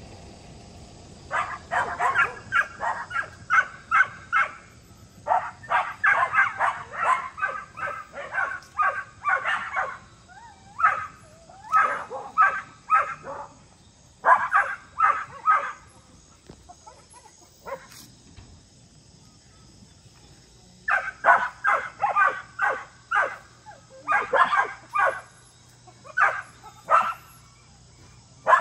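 Dogs barking in quick runs of several barks a second, with a lull of a few seconds in the middle: excited barking in greeting as their owners arrive home.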